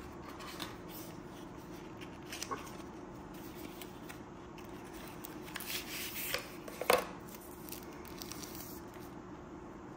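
Cardboard and paper packaging being handled: a slim card box lifted out and its paper sleeve slid off, with rustling and light taps. The loudest is a sharp click about seven seconds in, over a steady low hum.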